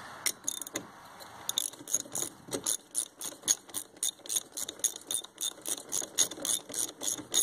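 Socket ratchet wrench clicking in quick, even strokes of about four a second, starting about a second and a half in, as nuts are run down onto the rim bolts. Before that, a few separate clicks of tools being handled.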